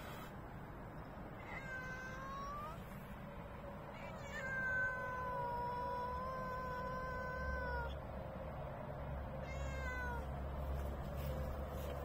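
Calico cat meowing three times: a short rising meow, then a long drawn-out one lasting over three seconds, then a short falling one.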